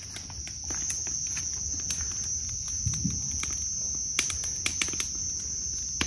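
Steady high chirring of insects, with a wood bonfire crackling and popping: scattered pops, a few sharper ones about four to five seconds in.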